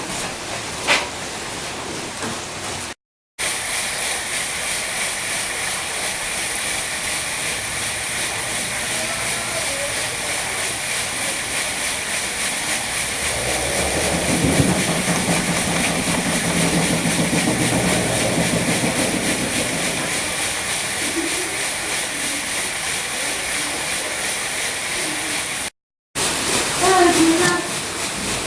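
Steady rushing hiss of water pouring onto a water wheel.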